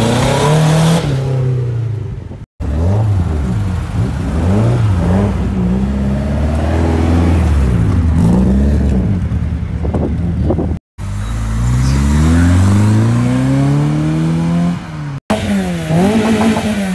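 Several older petrol car engines revved and pulling away, one short clip after another: the engine note rises and falls with each blip of the throttle, with one long rise in pitch as a car accelerates through a gear about two-thirds of the way in. The sound cuts out briefly between clips.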